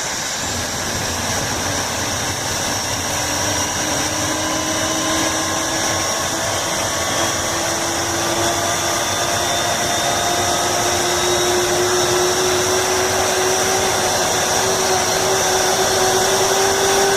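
Airliner turbine engine spooling up during start: a rushing noise with a whine that rises slowly in pitch and grows gradually louder.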